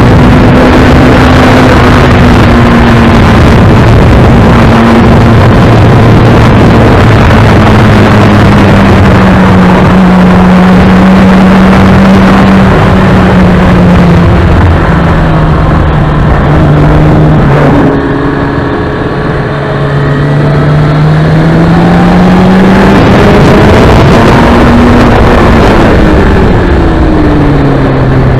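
Kawasaki ZX-6R's inline-four engine running at speed under heavy wind rush on the microphone. The engine note sinks slowly, eases off and goes quieter about two-thirds through, then climbs again and drops once more near the end.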